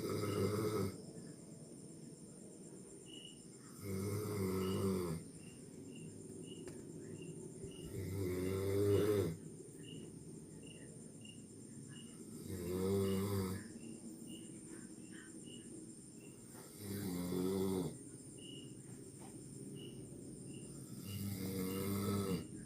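A sleeping person snoring: six snores, each about a second long, coming about every four seconds.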